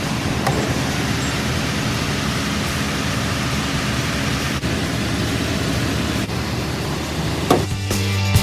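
Steady road and wind noise of a vehicle driving, with a low engine hum underneath. Rock music comes in near the end.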